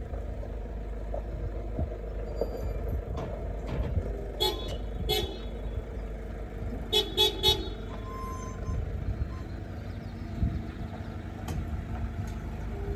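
Box truck running past close by with a steady low engine rumble, its horn tooting twice and then three times in quick succession.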